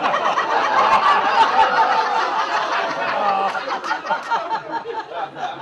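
Audience laughing, many voices together, swelling up in the first second or two and then slowly dying down.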